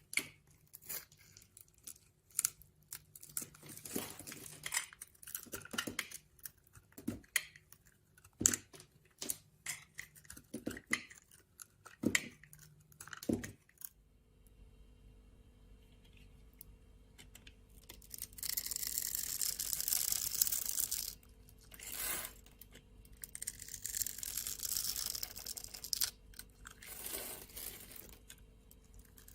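Bars of soap being cut with a knife: a run of sharp, crisp crunching cuts. About halfway through the sound changes to a few longer crumbling, scraping strokes through soap over a faint steady hum.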